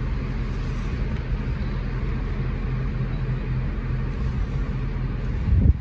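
Steady low rumble of motorway traffic with a constant low hum underneath; a short, loud low thump near the end.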